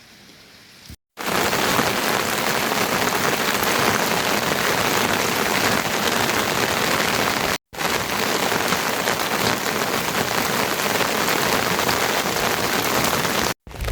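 Heavy rain pouring down as a dense, steady hiss, starting abruptly about a second in and broken by two short silent cuts, one midway and one near the end.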